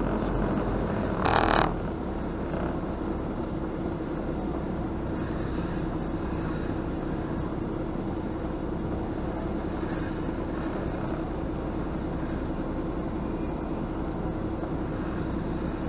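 Semi truck's diesel engine running steadily, heard from inside the cab, with a short burst of hiss about a second and a half in.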